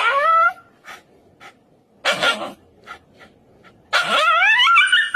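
A dog crying out in fear at having its nails clipped: a loud, wavering, rising yelp at the start, a short rough bark about two seconds in, and a longer wavering cry about four seconds in.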